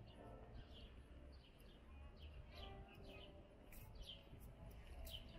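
Faint small-bird chirps, short falling notes about twice a second, over a low steady city rumble.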